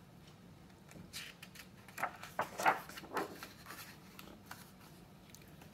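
Paper rustling as a large picture-book page is turned and smoothed flat by hand: a few soft swishes and rubs over about two seconds.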